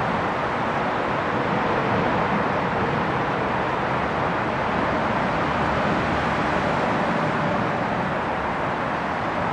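Steady rushing rumble of road traffic, even throughout, with no distinct events.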